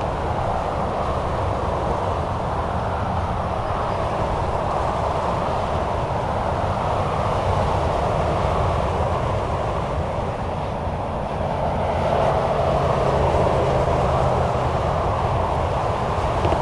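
Continuous highway traffic on Florida's Turnpike: steady tyre noise from passing cars and trucks. About twelve seconds in it grows louder, and a low engine drone rises above it as a heavier vehicle passes.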